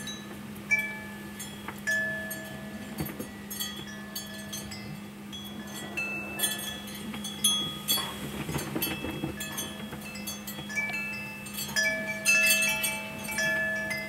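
Wind chimes ringing in gusty wind, single notes of different pitches struck at irregular moments and ringing on. A rush of wind comes about seven to nine seconds in, over a low steady hum.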